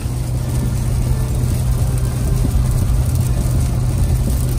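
Steady road noise inside a Ford F-450 pickup's cab at highway speed on a rain-soaked road: a low engine and tyre drone under an even hiss of tyres on wet pavement and rain.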